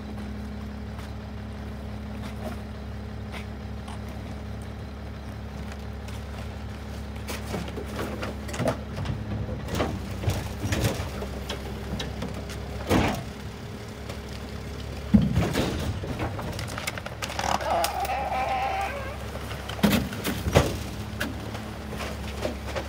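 Rear-loader garbage truck idling steadily while recyclables are tossed into its hopper. From about a third of the way in come irregular clatters and knocks of bottles, cans and plastic bins, with a few louder bangs around the middle and near the end.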